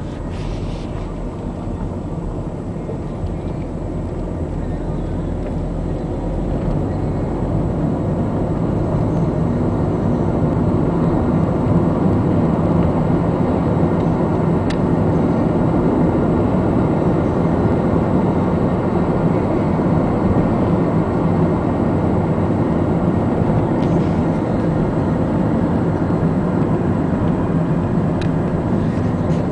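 Road and engine noise inside a moving car's cabin: a steady low rumble that grows louder over the first several seconds, then holds level.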